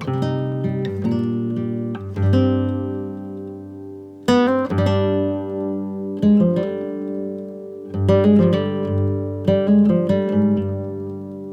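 Background music on acoustic guitar: plucked notes and chords struck about every two seconds, each left to ring and fade.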